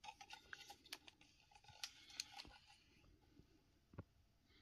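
Faint handling noise from a collector's Blu-ray box being moved by hand: a run of small clicks and rustles, then a single soft knock about four seconds in.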